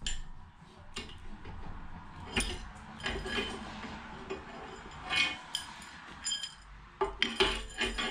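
A series of irregular metallic clinks and clanks from an engine stand's rotating head as the bare engine block mounted on it is turned over by hand, with its locking pin out. The clinking is busiest near the end.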